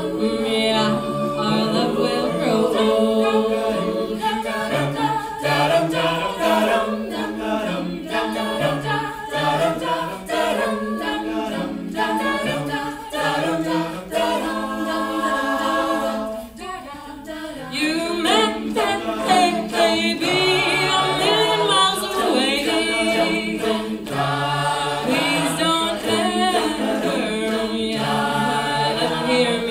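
Mixed-voice a cappella group singing in close harmony, a woman's solo voice leading over the held backing chords. There is a brief lull about halfway through.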